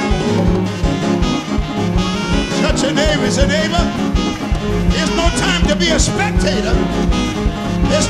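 Loud, fast gospel praise-break music from a church band, with drums striking a quick, steady beat over a driving bass line.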